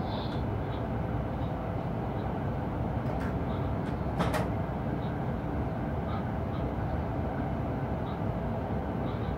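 Electric locomotive cab interior while the train runs: a steady low rumble with two sharp clicks about three and four seconds in.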